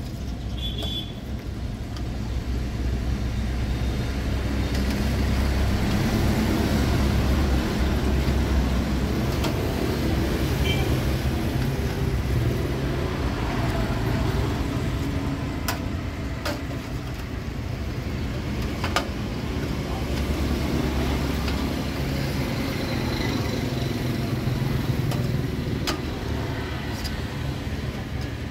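Steady low rumble of street traffic, swelling and fading as vehicles pass, with a few sharp clicks of a metal ladle against a stainless-steel pot.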